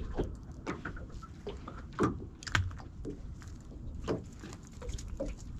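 Irregular light taps and knocks of a small whiting being handled and pressed along a measure on a fibreglass boat's gunwale, with the strongest knocks about two, two and a half and four seconds in, over a low rumble.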